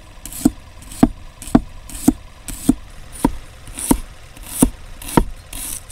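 A knife chopping garlic on a cutting board: about ten firm chops, roughly two a second, in a steady rhythm.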